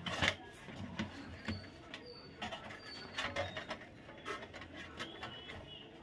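Irregular clicks and knocks of a room heater's plastic casing being handled and fitted back together, the sharpest knock right at the start.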